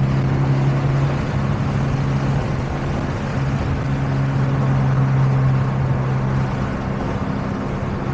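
Toyota GR86's flat-four engine with an HKS Spec-L exhaust droning steadily at highway cruise, heard inside the cabin with the windows down under a constant rush of wind and road noise. The drone dips briefly twice, about a second in and again near the end.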